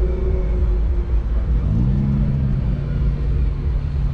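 Car engine and road rumble, heavy and low. The engine's pitch rises about a second and a half in, then holds steady.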